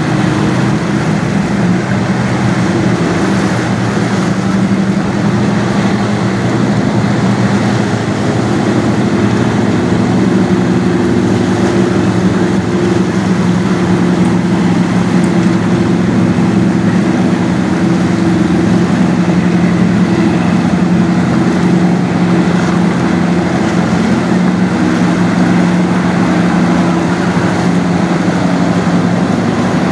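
Large tanker ship passing close by, its engines giving a steady low drone under a constant rushing hiss of water washing along the hull.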